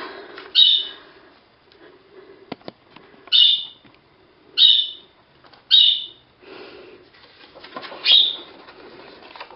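Pet budgerigars chirping: five short, loud, high chirps at irregular intervals, with a sharp click about two and a half seconds in.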